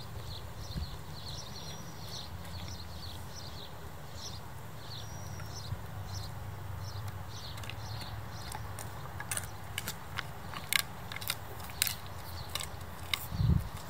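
Bernese mountain dog chewing a pig's ear, with sharp crunching cracks as it bites down from about halfway on.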